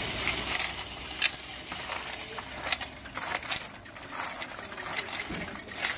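Loose coins, mostly pennies, clinking and rattling as they are pushed by hand into the tray of a coin-counting machine, with many irregular clicks.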